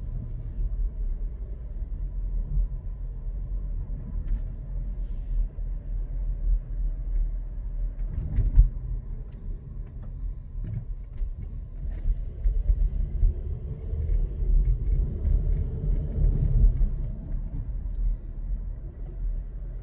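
Cabin noise of a Volkswagen T-Cross Highline driving at low speed: a steady low rumble of engine and tyres. There is a thump about eight and a half seconds in, and in the second half the engine note climbs a little as the car picks up speed.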